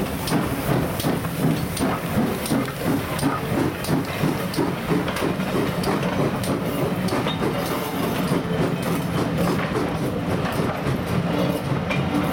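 Passenger coaches of a steam train rolling past close by, their wheels clattering rhythmically over the rail joints over a steady rumble.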